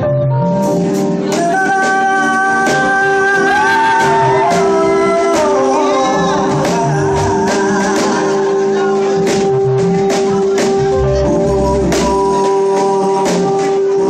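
Live band music: a woman singing into a microphone over long held keyboard chords, with drum-kit and cymbal hits keeping a steady beat.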